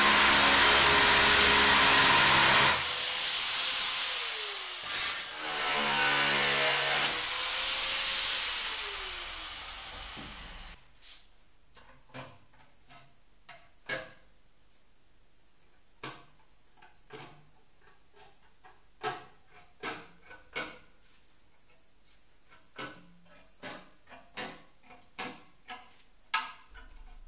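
Makita electric metal shear running and cutting through sheet metal, its motor pitch dipping and picking up again as the cut goes on. About eleven seconds in it stops, and hand aviation snips take over, trimming the sheet edge in a series of separate sharp snips.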